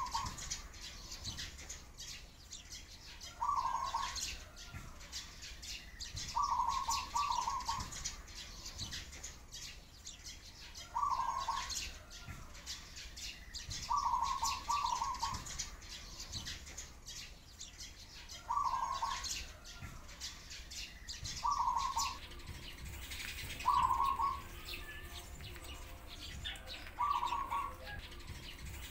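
A dove cooing in short phrases, one about every three seconds, over a steady stream of high sparrow chirps.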